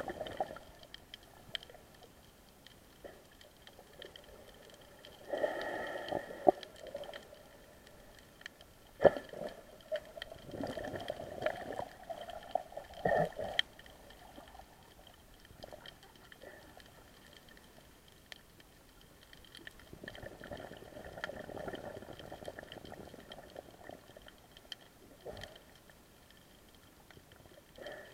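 Muffled underwater water movement picked up by a camera swimming along a reef. It comes in several swells a few seconds long, with scattered sharp clicks and faint steady high tones underneath.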